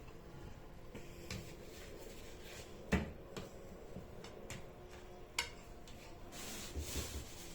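Objects handled in a kitchen: a few light clicks and two sharp knocks, with a faint hiss coming in near the end.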